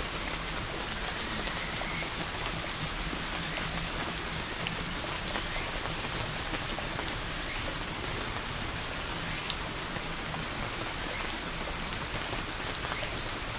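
Steady hiss of rain, with faint scattered ticks of drops.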